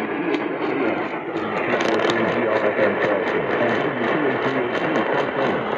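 Weak radio reception of an emergency alert broadcast: a hiss of static with a garbled voice barely coming through. A regular ticking of interference runs under it, about three clicks a second.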